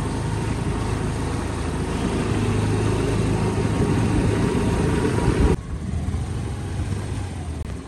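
Motor scooter's small engine running while riding, mixed with steady road and wind noise. The sound drops abruptly to a quieter level about five and a half seconds in.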